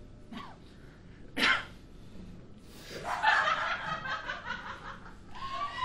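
Audience laughing, a dense spell of many voices from about three seconds in, preceded by one brief sharp sound about a second and a half in.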